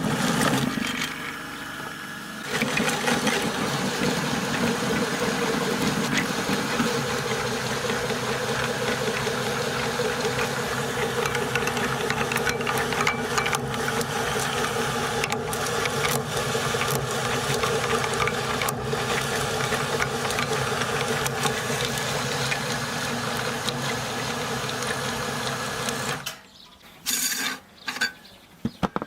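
Electric meat grinder running steadily, grinding a candle through its auger. It stops about 26 seconds in, followed by a few short clinks.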